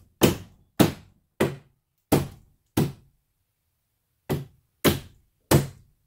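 Hammer blows on the wooden header of a door frame: five strikes at an even pace of about one every two-thirds of a second, a pause of about a second and a half, then three more.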